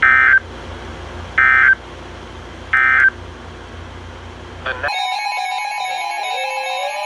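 Emergency Alert System end-of-message data code: three short, identical buzzing data bursts a little over a second apart, over radio hiss and hum, marking the close of the warning. Near the end the hiss cuts off and layered electronic tones with a falling glide start.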